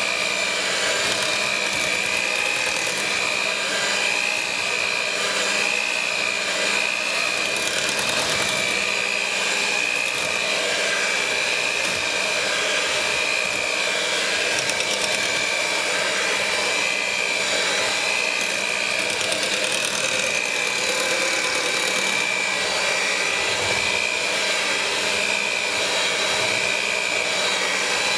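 Electric hand mixer running steadily with a high, slightly wavering motor whine as its beaters whip thick cream soap paste.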